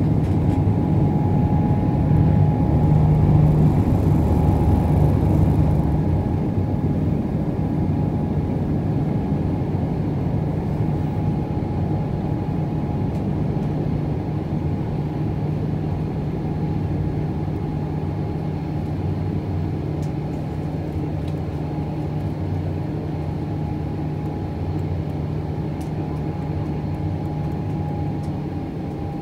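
Steady low rumble inside the cabin of a Boeing 777-300ER, the noise of its GE90 engines and airflow heard from the front row, slowly easing off in loudness.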